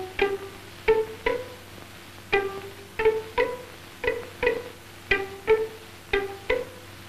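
Music of single plucked string notes, harp-like, each note ringing briefly and fading, about two or three notes a second in a simple tune. A faint steady low hum lies underneath.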